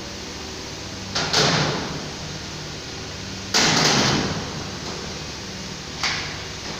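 Sheet-steel doors of an LT electrical panel being shut and latched: a rattling bang about a second in, a louder bang about halfway through, and a short latch click near the end, over a steady low hum.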